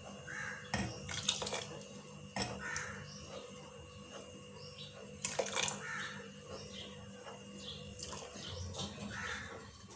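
Thin custard-and-milk mixture poured slowly from a bowl into a saucepan of hot milk and vermicelli, with a few light knocks of the bowl against the pan. A bird calls four times in the background.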